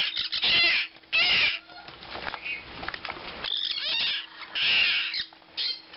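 Baby conures squawking: high, harsh calls in short bursts, about one a second.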